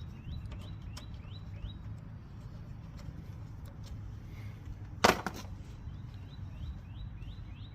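A bird calling in quick series of short rising chirps, about three or four a second, over a low steady background, with one sharp knock about five seconds in.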